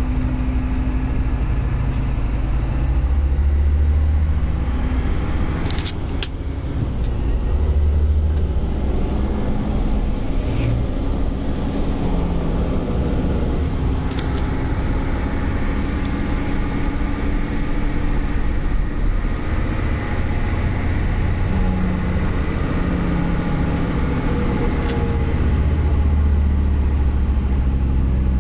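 Sisu truck's diesel engine running, heard inside the cab: a low drone whose pitch steps up and down a few times as the engine speed changes. There are a few brief clicks along the way.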